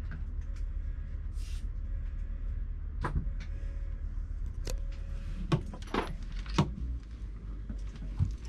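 A steady low hum with a handful of sharp knocks and clicks in the middle stretch.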